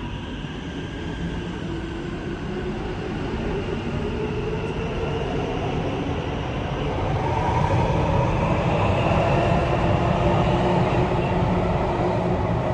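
Electric metro train moving along the platform of an underground station: a low rumble with a faint motor hum that grows louder about seven seconds in.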